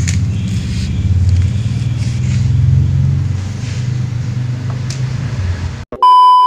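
A low, steady engine-like rumble with a hum in it. About six seconds in it cuts out and a loud, pure electronic beep sounds for well under a second.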